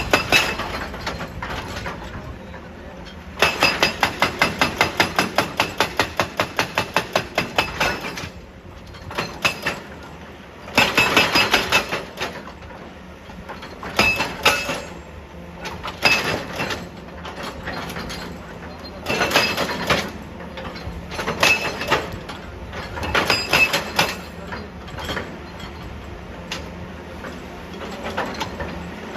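Excavator-mounted hydraulic breaker hammering rock in bursts of rapid strokes, about nine a second, with a long run of several seconds near the start and shorter bursts every few seconds after.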